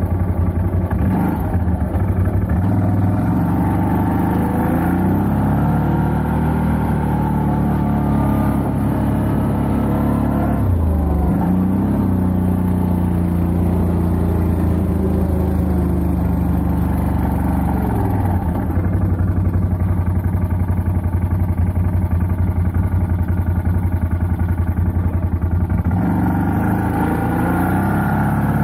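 CF Moto 850 quad's engine running while being ridden, its pitch rising and falling with the throttle. It eases off and picks up again twice, about a third and about two-thirds of the way through.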